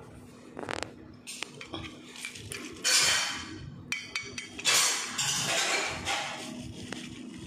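Rose-ringed parakeets pecking and cracking seeds and shells on a wooden tabletop: scattered sharp clicks and taps, with two louder rasping bursts about three and five seconds in.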